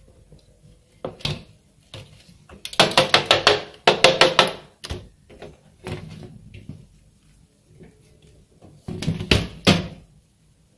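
Plastic and metal parts of a dot matrix printer's carriage and platen mechanism clicking and rattling as they are handled: a short burst about a second in, a loud run of rapid clicks from about three to four seconds in, and another burst near the end.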